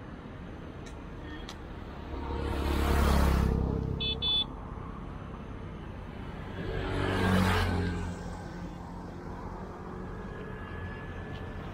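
Two road vehicles passing one after another, each swelling up and fading away, about three and seven seconds in. A horn gives two short toots about four seconds in.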